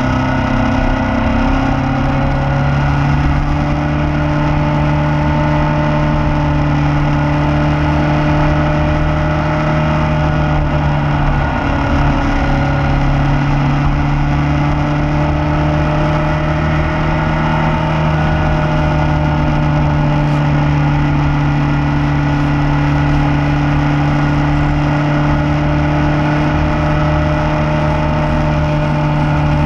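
Motorcycle engine running steadily at cruising revs with only small changes in pitch, heard from an onboard camera along with wind rush.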